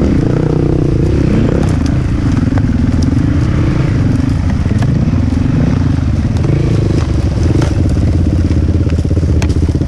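Dirt bike engines revving up and down while riding, then settling to a steadier run near the end, with scattered short ticks.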